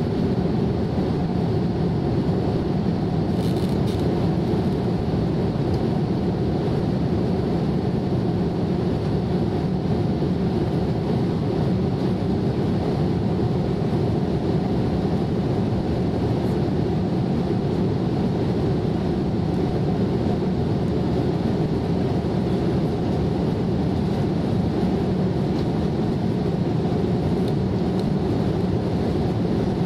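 Steady cabin noise of a jet airliner in flight, heard from a window seat: an even, unbroken low rumble of engines and rushing air.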